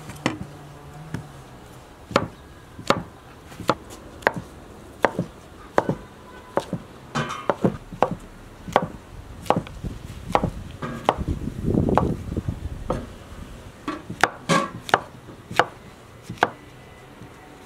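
Chef's knife slicing button mushrooms on a wooden cutting board: a steady run of sharp knocks, about one every three-quarters of a second, as the blade goes through each mushroom and strikes the board. A short low rumble comes midway.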